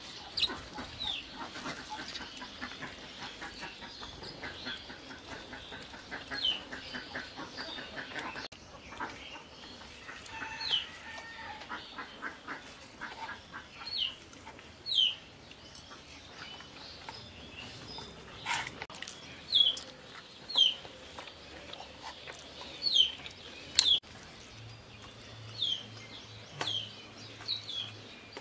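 A bird calling again and again in short, high chirps, each falling in pitch, a second or two apart, with a few sharp clicks between them.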